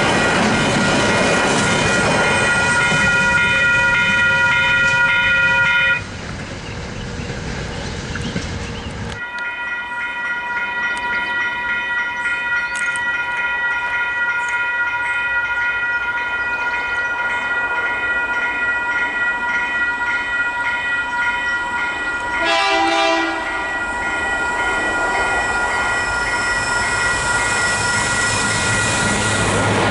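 Western Cullen Hayes electronic level-crossing bells ringing with a fast, steady repeating ding, over the rumble of a train. A heavy rumble fills the first several seconds and cuts off abruptly, a train horn sounds once for about a second a little past two-thirds of the way through, and the rumble builds again near the end as the train approaches.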